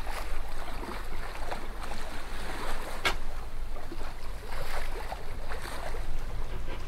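Water rushing and churning in the wake of a moving boat, mixed with wind noise and a steady low rumble. There is a short sharp sound about three seconds in.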